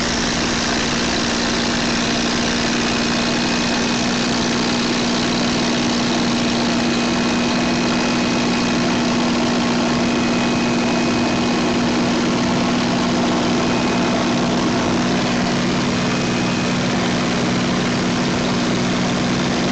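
Steady drone of a vintage warbird's piston engine with rushing airflow, heard from inside the aircraft in level flight.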